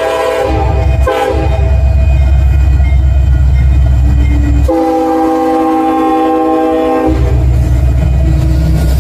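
EMD SD70ACe diesel locomotive UP 1988 passing close, sounding its multi-note air horn: a blast that ends about half a second in, a short blast about a second in, then a long blast of over two seconds starting near the five-second mark. Between the blasts, the low rumble of the locomotive and train rolling by.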